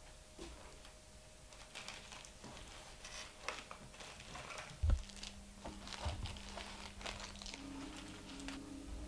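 Crinkling and rustling handling noise, with a single thump about five seconds in and a steady low hum in the second half.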